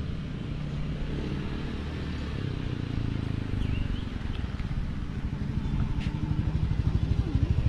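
Motor scooter engine running, its rapid firing pulses growing louder as it comes up close in the last couple of seconds.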